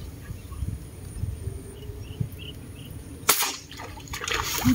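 A single sharp airgun shot about three seconds in as a fishing dart is fired, followed about a second later by splashing at the surface where the darted tilapia thrashes.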